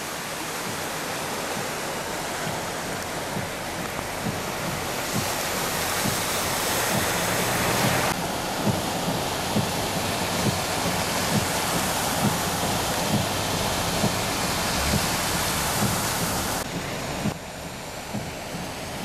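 Heavy rain and rushing, splashing flood water as cars drive through a flooded street, a steady hiss that jumps abruptly in level a few times. Soft knocks come about once a second through the middle of it.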